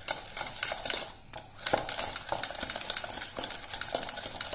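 Hand wire whisk beating ghee and powdered sugar in a stainless steel bowl, its wires clicking and scraping against the steel in quick strokes, with a brief lull about a second in. The mixture is being creamed until fluffy.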